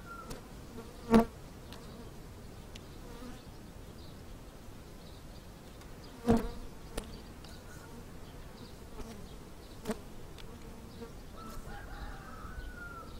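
Honeybees buzzing steadily around an opened hive. Two sharp knocks, about a second and about six seconds in, and a few fainter clicks come from the hive tool prying the wooden frames loose.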